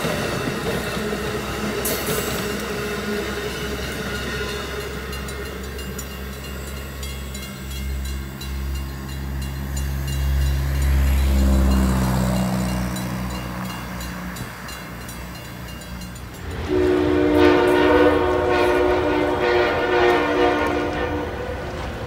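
Amtrak Northeast Regional passenger cars rolling past on the rails with steady wheel noise, then a low rumble that swells and fades as the train pulls away. About seventeen seconds in, a loud electric-locomotive horn sounds a chord in several short blasts.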